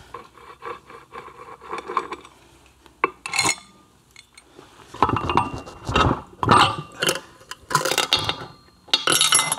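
Metal clinks, knocks and scrapes as the aluminium crankcase of an Aermacchi 350 engine is split and its parts handled: a steel puller plate and the freed case half lifted off and set down. Scattered light clicks in the first half, then louder clattering through the second half.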